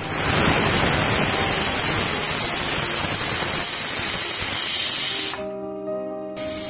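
Pressure cooker whistling: a loud, high steam hiss vents from under the lifted weight valve. It stops abruptly about five seconds in and starts again just before the end.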